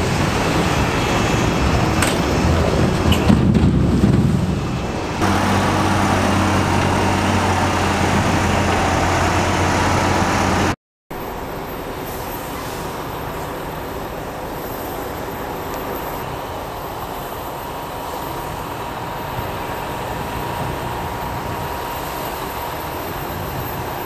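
Heavy truck engine running while water churns around a floating-bridge bay sliding off its transporter into the river. After a cut about five seconds in comes a steady engine hum, and after a brief dropout near the middle a quieter, steady rumble of distant engines.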